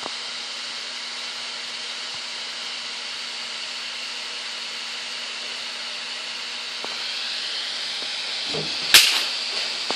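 Steady hiss of a seven-jet brass stove burner running on an HHO gas, hexane and compressed-air mix, with a faint steady hum under it. It gets a little louder after about seven seconds, and a single sharp knock about nine seconds in is the loudest sound.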